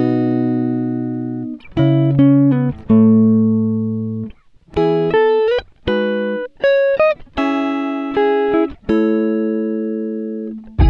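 Background music on a plucked guitar: short phrases of chords and single notes, each struck and left to ring out and fade, with brief breaks between phrases.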